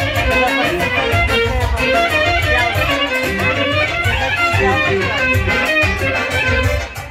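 Loud kyuchek dance music: a quick, steady beat under a busy lead melody, dipping briefly just before the end.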